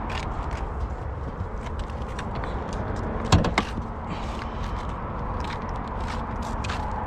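A car door is shut with a solid double knock about a third of the way in, over a steady low rumble and light handling clicks.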